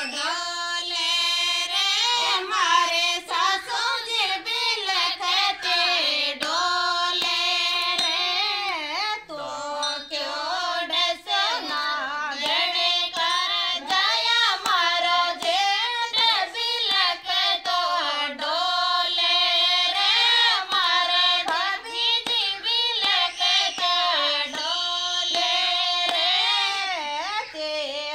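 A woman singing a Rajasthani folk song to Tejaji, one melodic voice line with long, bending notes.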